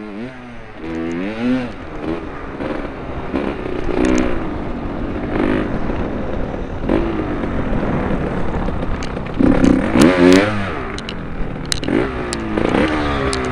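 Kawasaki KX 250 two-stroke motocross engine riding hard over a dirt track, its pitch rising and falling again and again with the throttle, with the sharpest rev about ten seconds in. Clicks and knocks come from the bike over the bumps.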